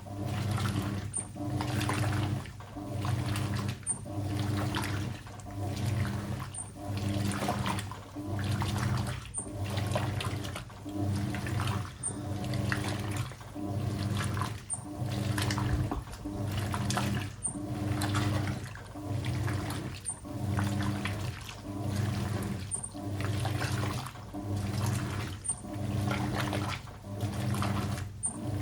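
Hoover 800RL top-loading washing machine agitating a full tub of water on its regular wash cycle: the motor hums and the water sloshes in an even rhythm, one stroke about every second and a half with a slight pause between, as the agitator drags a heavy comforter through the water. A faint click comes about every two and a half seconds.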